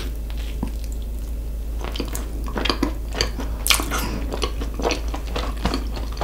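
Chewing and biting into cheesy Chicago-style pizza, close to the microphone: irregular small clicking mouth sounds, sparse at first and busier from about two seconds in.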